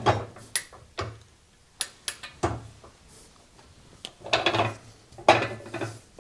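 Metal parts of an arbor press and a drill chuck clinking and knocking as they are handled: a run of sharp clicks in the first half, then two longer metallic rattles near the end.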